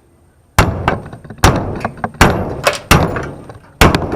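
Hammer blows on a brass kitchen faucet: five sharp, ringing strikes under a second apart, starting about half a second in, knocking at its parts to get them loose.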